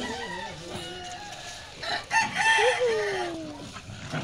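Animal calls: a series of pitched cries that rise and fall, loudest about two seconds in and ending in one long falling cry.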